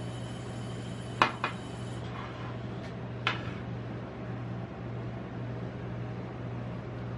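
Knife blade knocking against the steel cold plate of a rolled ice cream machine while melon is sliced on it: two quick clinks a little over a second in and a third about two seconds later, over a steady low hum.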